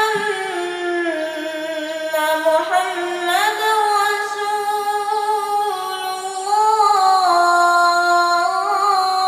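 A child's voice reciting the Quran in melodic tajwid style, holding long drawn-out notes with slow ornamented turns in pitch. It grows louder about two-thirds of the way through.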